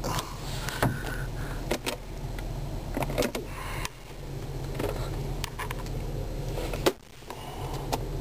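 2003 Nissan Maxima's V6 engine idling steadily, heard from inside the cabin, with a few light clicks and knocks as hands move over the interior trim.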